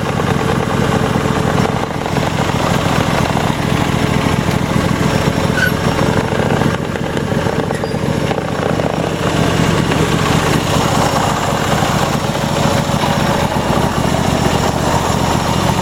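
The Briggs & Stratton Intek 26 hp V-twin engine of a Troy-Bilt GTX2654 riding mower running steadily.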